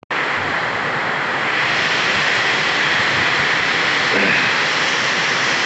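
Heavy cyclone rain pouring down in a steady, even rush.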